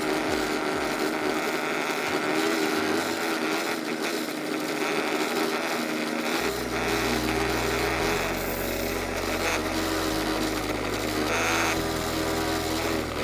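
Wood lathe running while a turning tool cuts into a wooden bowl blank: a steady motor hum under a continuous scraping cutting noise.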